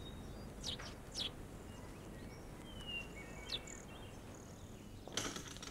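Faint outdoor ambience with a few short, high bird chirps and one brief whistled glide over a low hiss, then a brief noisy rustle near the end.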